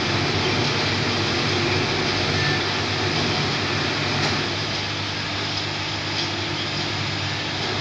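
Steady electrical hum with a broad rushing machine noise from a U-bend pipe annealing machine while it heats a carbon-steel U-bend clamped in its contact blocks.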